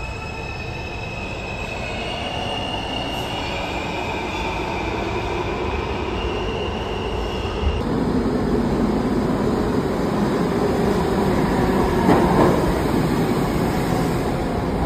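NYC subway trains in an underground station. First there are high, steady squealing tones from a train on the far track. After a cut, a D train pulls into the platform on the near track, its rumble and clatter getting louder, with a louder burst about twelve seconds in.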